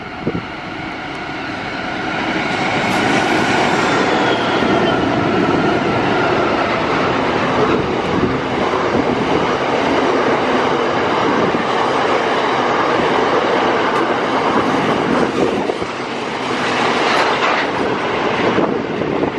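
Pacific National NR class diesel-electric locomotives passing close by with their engines running, growing louder over the first few seconds. Then a long line of container wagons rolls past with a steady rolling and rattling of wheels on the rails.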